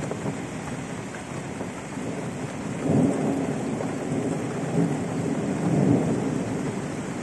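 Thunder rumbling over steady rain, swelling up about three seconds in and rolling on in several peaks.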